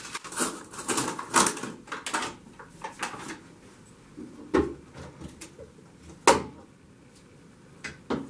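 A paper bag of flour rustling as it is opened and handled, followed by a few sharp knocks, the loudest about six seconds in.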